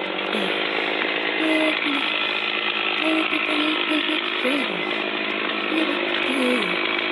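A chainsaw running under load, a steady, dense noise with brief shifts in pitch.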